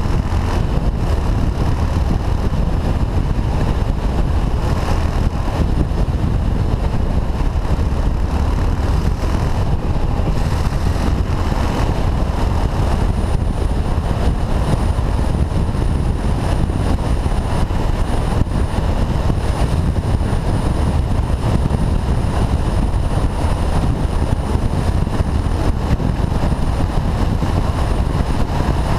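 Motorcycle riding at road speed, heard from a helmet-mounted camera: a steady deep rumble of wind on the microphone over the running engine. A faint high whine joins about halfway through.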